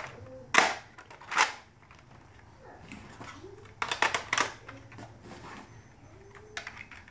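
Plastic clicks and knocks from a Nerf First Order Stormtrooper Blaster being handled: a few separate sharp clicks, with a quick cluster of them about four seconds in.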